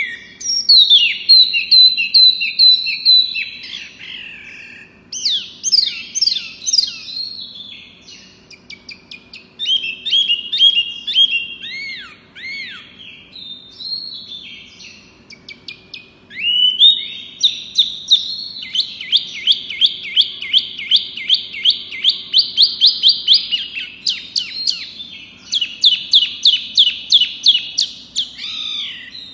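Caged sunbird (kolibri wulung) singing loudly and without pause: varied high chirps and short whistled phrases, then, from about halfway, long fast trills of rapidly repeated notes.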